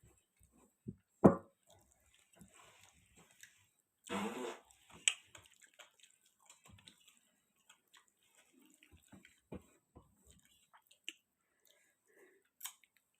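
Someone eating a meal of rice and dal: scattered chewing and mouth noises with small clicks. There is a sharp knock about a second in and a short wet, noisy sound about four seconds in.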